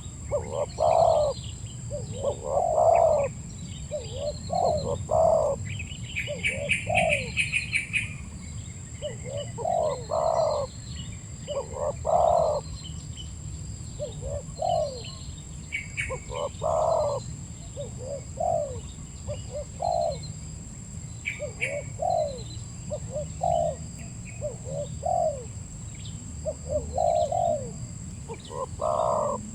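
Spotted dove (tekukur) cooing over and over in short repeated phrases. Small birds chirp higher now and then, over a steady high whine and a low rumble.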